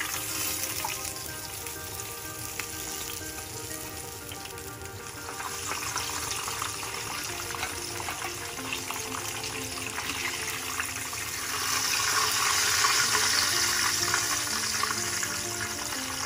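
Hot oil crackling and sizzling as battered chicken fillets fry, the crackle swelling louder about twelve seconds in, over background music.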